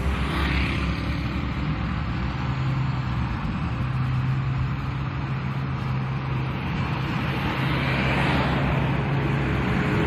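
Diesel engine of a three-axle dump truck running steadily as the truck drives over dirt, with a low, steady engine drone, getting slightly louder near the end as it comes closer.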